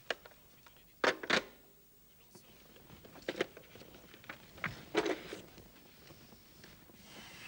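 A few short knocks and clicks of objects being handled on a table: a louder pair about a second in and more around three and five seconds.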